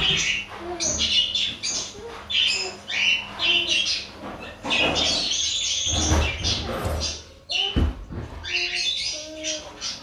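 Budgerigars chattering and warbling in quick chirpy bursts, with a dull thump late on.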